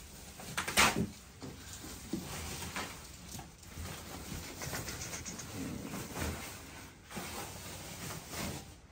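Thin foam protective wrapping sheet rustling and crinkling as it is pulled and lifted off a new flat-screen TV, with one louder crackle about a second in.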